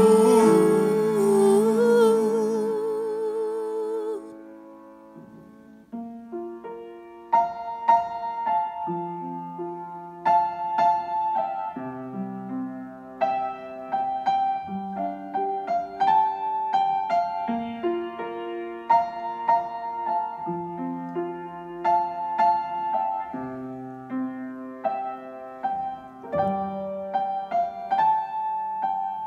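A man's held sung note with vibrato fades away, then a solo piano plays an instrumental passage of repeated chords under a melody line.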